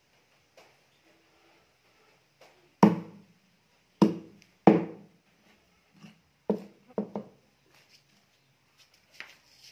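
A cleaver chopping through catfish pieces into a thick wooden chopping block: three hard chops about three, four and nearly five seconds in, then three lighter ones in quick succession a couple of seconds later, with a few faint taps in between.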